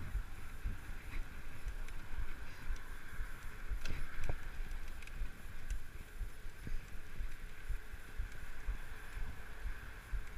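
Wind buffeting the microphone and tyres rolling on pavement as a tandem bicycle rides along a bike path, with a couple of sharp clicks about four seconds in.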